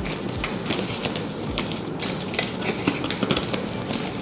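Rustling cardboard packaging with scattered light clicks and taps as an Apple Watch box is handled and opened.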